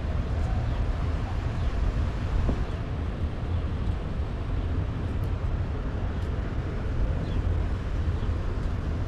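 Steady low outdoor rumble with wind buffeting the microphone, and a few faint high chirps now and then.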